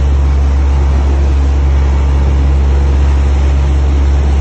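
Motorboat engine running steadily at a constant low pitch, loud and unchanging, with a hiss of noise over it.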